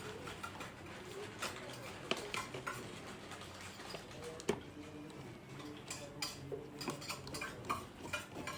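Scattered light clicks and metallic clinks of small computer hardware and screws being handled during a PC assembly.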